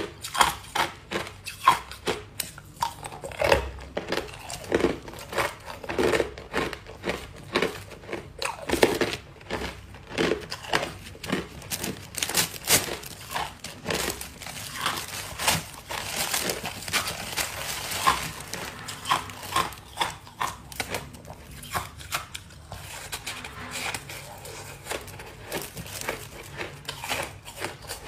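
Ice being crunched between the teeth: a rapid run of sharp cracks and crunches. Midway, plastic crinkles and cubes clatter as a hand rummages in a bag of ice.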